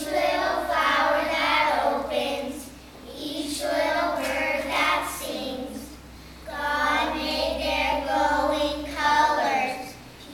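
A group of young children singing together in unison, in three phrases with short breaks between them.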